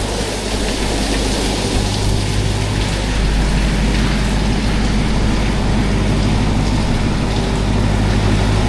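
Car-wash water jets drumming steadily on the car's body, heard from inside the cabin, over the low hum of the Hellcat's supercharged V8 idling.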